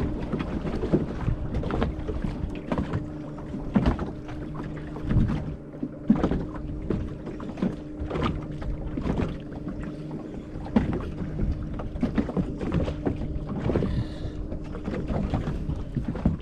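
Boat engine running with a steady low hum, under irregular knocks and wind on the microphone.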